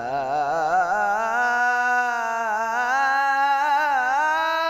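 A young male munshid singing an Islamic devotional ibtihal (religious chant) solo. He holds one long vowel that wavers in quick ornaments at first, then climbs to a steadier, higher note.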